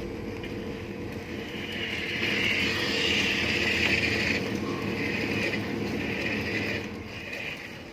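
Electric motor and gearbox of a radio-controlled toy construction vehicle running with a steady hum and a higher whine, louder from about two seconds in, easing off near the end.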